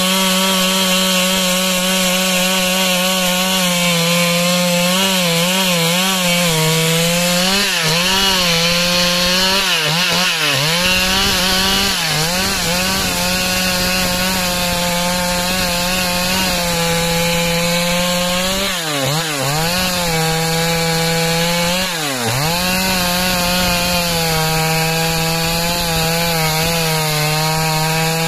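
Stihl MS 382 two-stroke chainsaw running at full throttle, ripping lengthwise along a log. Its pitch holds steady, dipping briefly and recovering several times as the chain takes load in the wood.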